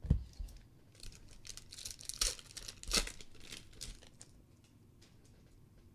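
Foil wrapper of a 2014 Panini Prizm World Cup trading-card pack being torn open and crinkled: a run of crackling rips over about three seconds. A soft thump comes right at the start.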